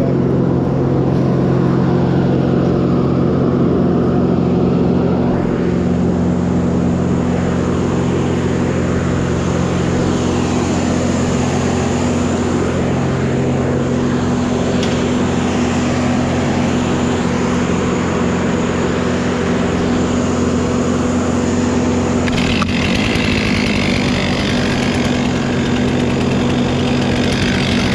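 A large engine running steadily at constant speed. From about three-quarters of the way in, a rougher, hissing rattle joins in.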